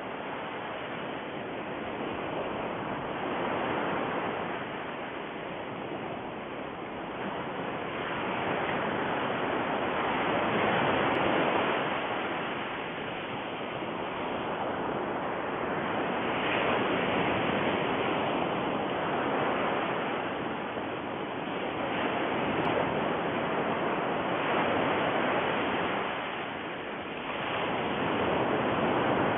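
Steady rushing noise like running water or surf, with no motor hum or clicks, swelling and fading every few seconds.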